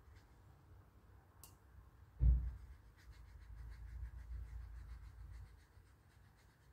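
A dull thump a little over two seconds in, then a paintbrush working wet watercolour paint in a run of quick, light scrubbing strokes, mixing the colour.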